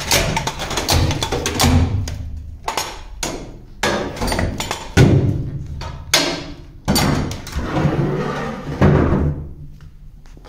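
Heavy knocks about once a second, each with a short metallic ring, as old cement is broken out of a steel boat's bilge.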